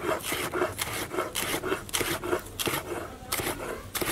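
Large chef's knife slicing a green bell pepper into strips on a wooden cutting board: a steady run of cuts, about three or four a second, each a short scrape of the blade against the wood.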